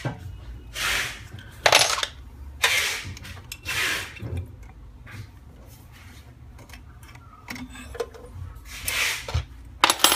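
Metal hex keys being handled and slid into a plastic holder. Short scraping rustles come about once a second at first, then twice more near the end.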